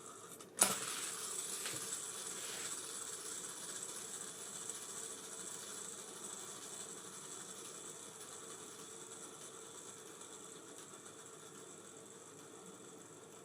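Abu Garcia Ambassadeur 5500C baitcasting reel: a sharp click about half a second in, then the spool spinning freely with a steady whirring buzz that slowly fades over more than ten seconds.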